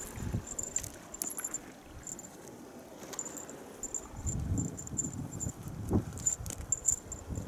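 Wind rumbling on the microphone, heavier in the second half, with a thin high chirping that comes and goes in short pulses and a few light clicks.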